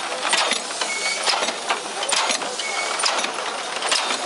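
Steam engine of a replica Cugnot steam carriage running: a steady hiss of escaping steam with rhythmic chuffs about two to three a second, and a short high squeak about once a second.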